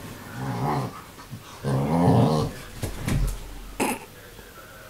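Salukis play-growling as they wrestle: two growls, the second longer and louder, then a shorter one, and a brief sharp sound near the end.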